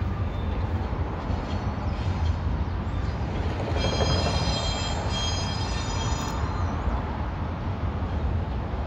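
Freight train cars rolling past with a steady rumble of wheels on rail. About four seconds in, a high-pitched metallic squeal rings out for about two seconds.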